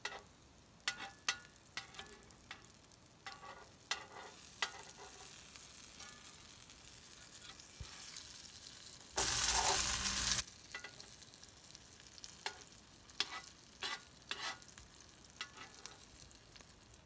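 Black bean burger patties frying in oil in a large skillet: a steady sizzle with frequent crackling pops, and a louder rush of hiss for about a second near the middle.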